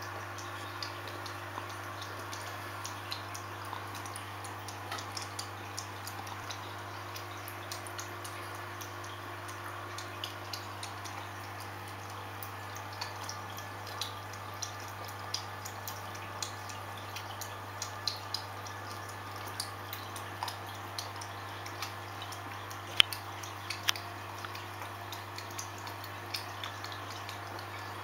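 Aquarium running: a steady low hum with small irregular drips and clicks of water, and two louder clicks near the end.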